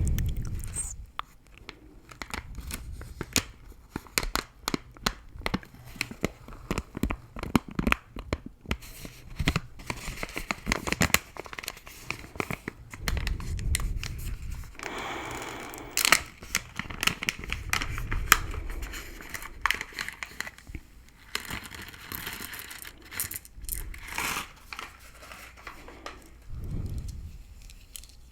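Close-miked gum chewing: many sharp, irregular clicks and crackles of sticky gum in the mouth, with a few longer rustling smears.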